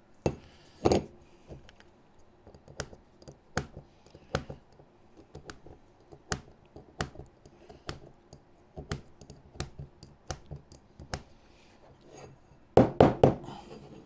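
A small pointed tool clicking and tapping against a machined aluminium wheel disc as swarf is picked out of its bolt holes: irregular sharp ticks, one or two a second, with a short run of louder knocks near the end.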